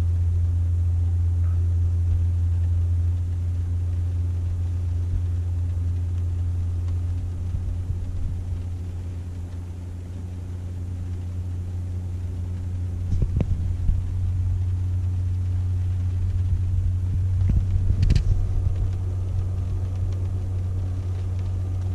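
Steady low drone of a Tesla charging at a Supercharger, heard from inside the cabin while the battery is being heated and charged. A few short knocks come about 13 and 18 seconds in.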